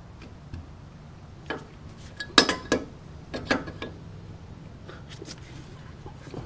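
Several sharp metal clinks and knocks, the loudest with a brief ring about two and a half seconds in, as a new front shock absorber and its mounting hardware are worked up into place on a pickup-type truck's suspension.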